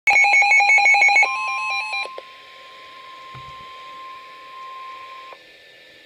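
Weather alert radio's alarm beeping rapidly and loudly for about a second, then the steady NOAA Weather Radio warning alert tone, one held 1050 Hz tone, which cuts off a little after five seconds: the signal that a warning broadcast is about to follow.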